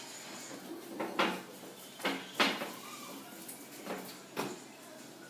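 Homemade slime being mixed into a dough, with short sharp knocks or slaps about once a second, often two close together.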